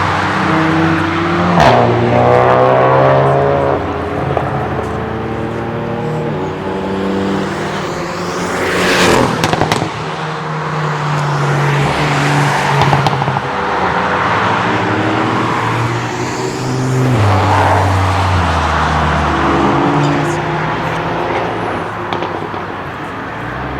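Several cars passing one after another on a race track, engines revving up and dropping in pitch through gear changes, with a sharp crack or two from an exhaust.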